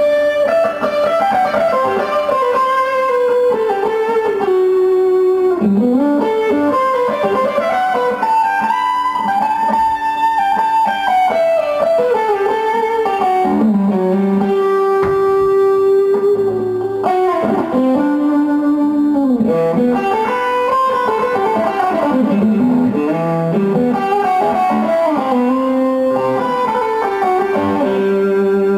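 Instrumental guitar music: a slow melody of long notes that glide up and down, over lower held notes.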